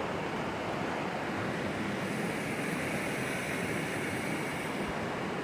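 Fast-running mountain river rushing steadily, with wind mixed in.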